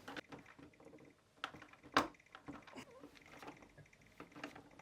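Faint, sparse clicks and taps of a screwdriver and screws against the plastic housing of a Karcher K3 pressure washer, with two sharper clicks about a second and a half and two seconds in.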